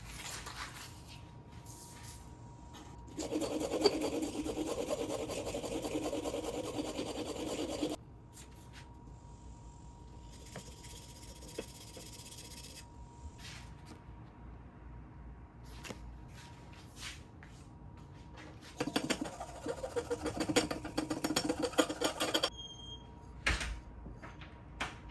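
Block plane blade being sharpened: the steel iron scraped back and forth on an abrasive in two spells of several seconds each, the second one choppier, with a short knock near the end.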